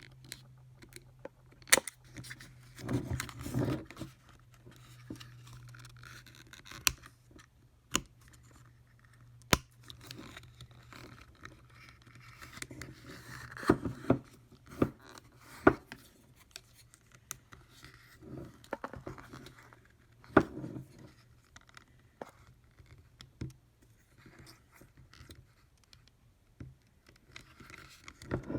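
Hands working tools out of their retail packaging: irregular sharp clicks and knocks, rustling and scraping of plastic and cardboard, with snipping. A low steady hum sits under the first several seconds.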